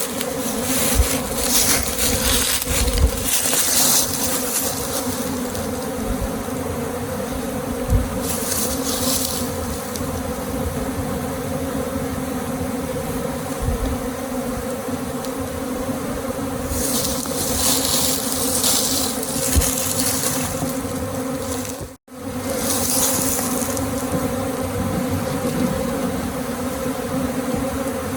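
A mass of honey bees from a swarm buzzing loudly and steadily in a continuous droning hum, with bursts of hiss now and then. The sound cuts out for an instant about two-thirds of the way through.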